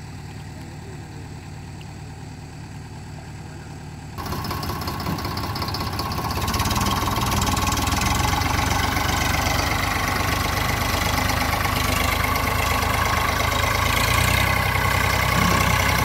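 Diesel tractor and backhoe engines idling low, then about four seconds in throttling up sharply and running loud under heavy load as the mud-stuck Eicher 548 tractor is hauled free by the JCB 3DX backhoe.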